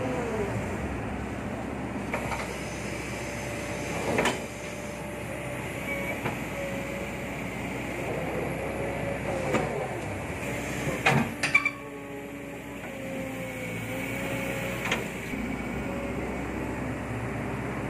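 Crawler excavator's diesel engine and hydraulics running as the machine travels on its tracks, with a whine that rises and falls. A few sharp metallic clanks break through, with the loudest cluster about eleven seconds in.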